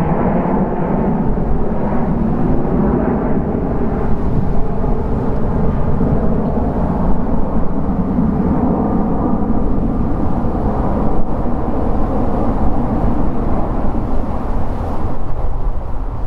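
The two Rolls-Royce RB211-535E4 turbofan engines of a Boeing 757-200 climbing out after takeoff: loud, steady jet noise that starts to fade at the very end.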